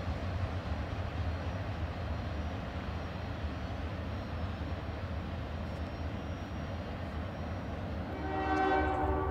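Approaching diesel freight train: a steady low rumble, then the locomotive's air horn sounds about eight seconds in, a chord of several tones held past the end.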